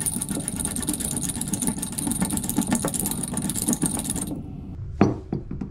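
Old metal bathtub drain flange being unscrewed with a drain removal tool: a continuous grating, ratcheting scrape of metal threads turning, which stops about four seconds in. A single sharp knock follows near the end.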